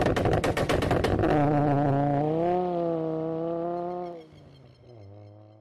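Car engine revving as a logo-intro sound effect: a rapid run of pops, then held high and wavering, falling away about four seconds in to a lower steady note that cuts off near the end.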